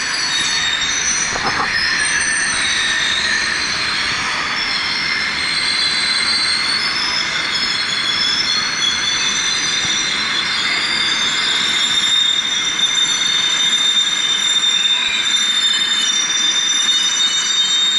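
Subway train pulling in along the platform and braking, its wheels and brakes squealing in several high, wavering tones over a steady rumble. The loudest squeal strengthens and rises slightly in pitch over the last few seconds as the train slows.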